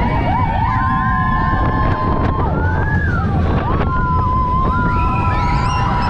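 Mine-train roller coaster running along its track, heard from onboard as a heavy, steady rumble with wind on the microphone. High squeals glide up and down and hold over the top.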